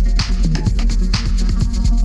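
Electronic dance music with heavy bass and a steady beat, a bright hit landing about once a second.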